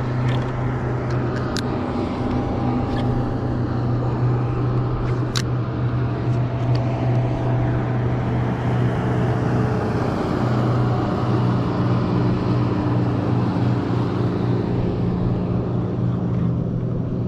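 Steady low motor hum from a boat, with a few faint sharp clicks.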